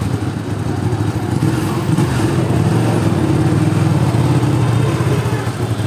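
Ducati Panigale superbike engine running at a steady idle, its exhaust pulsing quickly; it grows a little louder over the first two seconds, then holds.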